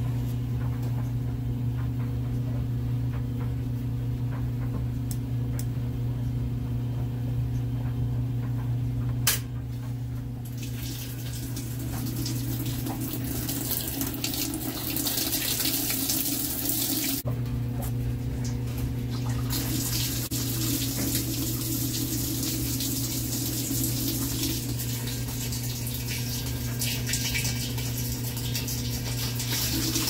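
Top-loading washing machine filling: a steady low hum, a single click about nine seconds in, then water rushing into the tub. The rush stops briefly about seventeen seconds in and resumes a couple of seconds later.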